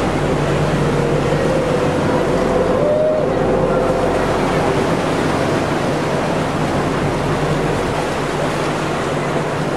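Steady rush of wind and sea water over a low, steady engine hum.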